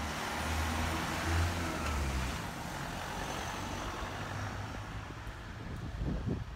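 A Honda hatchback driving past close by. Its low engine hum and tyre noise are strongest in the first two seconds or so, then fade away as it moves off.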